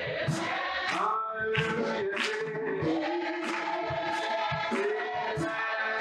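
Gospel music with a group of voices singing held notes together over a steady beat of about two strokes a second.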